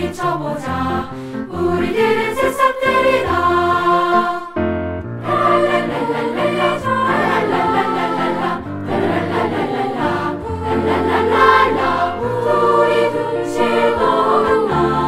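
Children's choir singing Korean children's songs about spring, with piano accompaniment.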